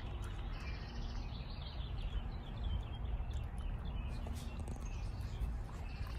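Small birds chirping repeatedly in short calls over a steady low rumble of outdoor noise, with a few faint clicks.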